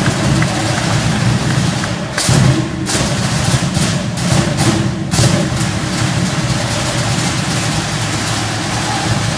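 Loud, fast Polynesian drumming runs through. It breaks off in short gaps between about two and five seconds in.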